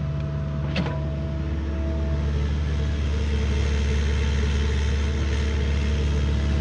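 Mini excavator's diesel engine running steadily under hydraulic load as it lifts a bucket of dirt out of a hole and swings it aside. A short clank about a second in.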